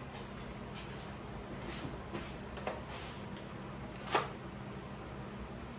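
Plastic body parts of an ATV being handled and pried apart: a few light clicks and knocks, the loudest about four seconds in, over a steady low hum.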